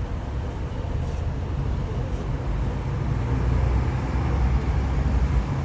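Steady urban street traffic noise, a low rumble, growing a little louder about three seconds in.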